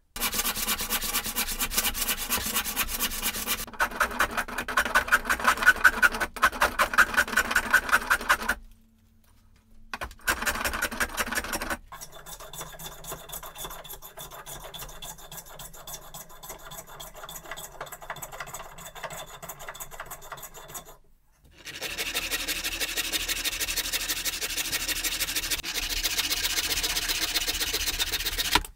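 Hand tools working a block of oak: rhythmic rubbing strokes of a hand plane taking shavings off the rounded mallet head, then a handsaw cutting back and forth into it. The work comes in several takes that stop and restart, with the loudest strokes in the first part.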